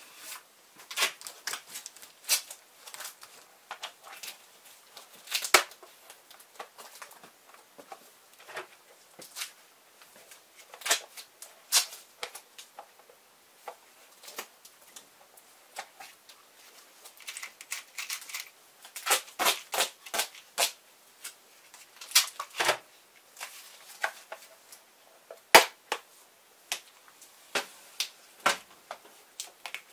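Duct tape being pulled off the roll, torn and pressed into place: irregular sharp crackling snaps and clicks, some coming in quick runs.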